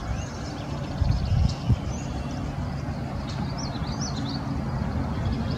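Small birds chirping and whistling faintly over a steady low rumble, with a few low thumps between about one and two seconds in.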